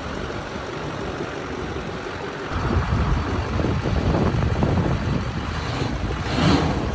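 Wind buffeting the phone microphone, with the 6.6-litre Duramax LLY turbo-diesel V8 of a 2005 Chevrolet Silverado 2500HD idling underneath. The rushing grows louder about two and a half seconds in and swells again near the end.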